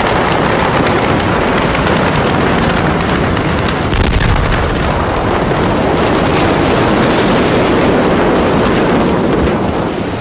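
Loud, continuous crackling rumble of the Beirut explosions, with a deeper low thud about four seconds in.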